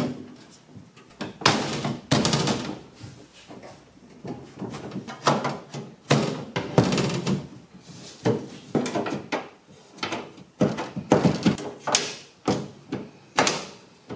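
Aluminum deck panels and support strips knocking and clanking as they are fitted into an aluminum jon boat's bow: a string of irregular thunks and scrapes.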